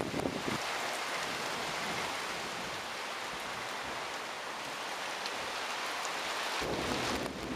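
Heavy driving rain pouring down in a dense, steady hiss. A low rumble joins near the end.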